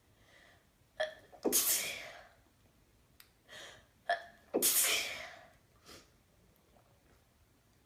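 A woman sneezing twice, induced sneezes about three seconds apart. Each starts with a quick catching in-breath and breaks into a loud, breathy sneeze.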